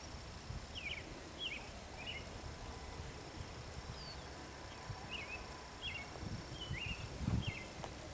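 A bird repeats short high chirps about twice a second over a low outdoor rumble, with faint low thuds of a pony's hooves in arena sand, the loudest near the end.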